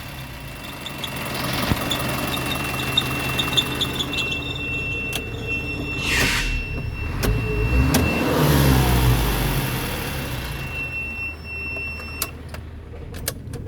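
Isuzu Reward truck's diesel engine running, revved up and back down about eight seconds in. A thin, steady high-pitched whine sits over it for much of the time, along with a few sharp clicks.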